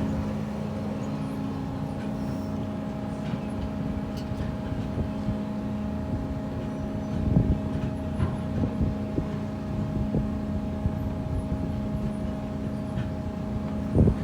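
Machinery running with a steady hum, with scattered knocks and clunks, a louder bunch of them about halfway through and again near the end.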